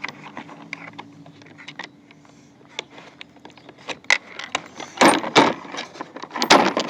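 Small metal and plastic tool parts being handled, clicking and clinking as pieces of an impact wrench kit are fitted together, with a louder clatter of handling about five seconds in and again near the end.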